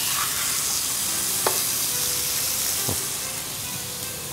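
Chicken breast pieces sizzling as they start to grill on a lightly oiled electric griddle plate. There is a steady hiss that eases a little near the end, with two light clicks along the way.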